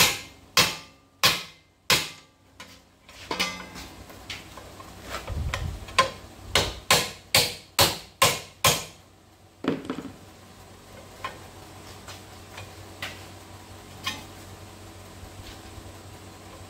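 Sharp metal-on-metal strikes as a steel flat bar knocks a fold into thin sheet steel clamped in angle iron in a vise. There are a few spaced blows, then a quick run of about seven, one more, and after that only faint taps.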